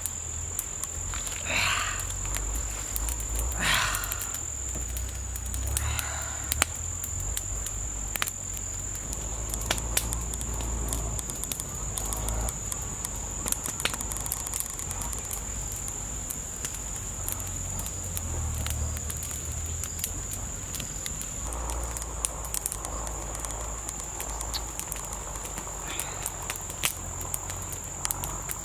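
Insects calling in one steady high note, with scattered sharp crackles from a small wood campfire. In the first few seconds there is rustling as a person settles onto banana leaves.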